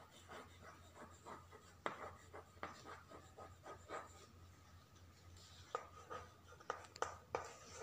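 Chalk on a chalkboard as words are written: faint, irregular light taps and short scratching strokes, coming more thickly near the end.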